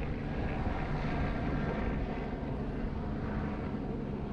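Truck driving, heard from a camera mounted on its roof: a steady rumble of engine and road noise with a low, even hum.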